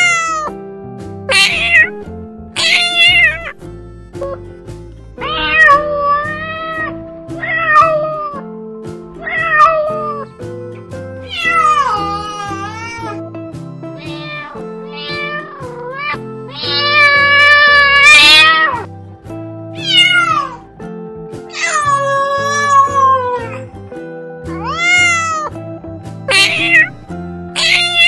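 Kittens meowing again and again in short, high calls that rise and fall, with one longer, louder meow about two-thirds of the way through, over background music.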